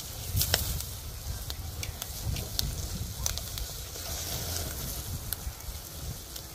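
Meat sizzling over charcoal on a disposable foil-tray barbecue, with scattered crackles and pops, over a low rumble.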